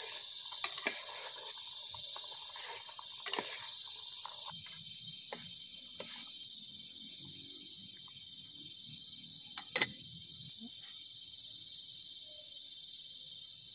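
Dense night-time insect chorus, a steady high-pitched trilling. A few sharp clinks of a spoon against the metal cooking pot cut through it, the loudest about a second in and near ten seconds.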